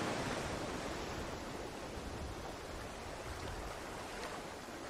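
Steady rushing noise of ocean surf breaking on a beach, slowly fading.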